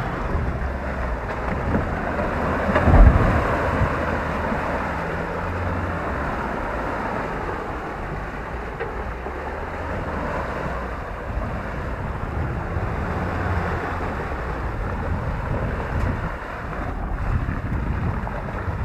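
2017 Ford Ranger Wildtrak's turbo-diesel engine pulling at low revs, rising and easing off as the ute crawls through deep muddy ruts, with wind buffeting the microphone. A heavy thump about three seconds in.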